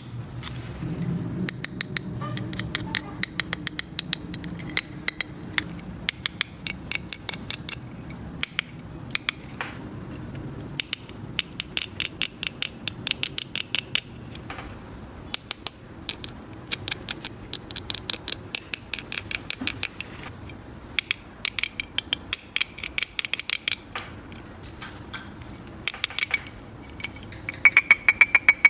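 Small hard plastic toy pieces being handled, clicking and tapping against each other in quick runs of sharp clicks.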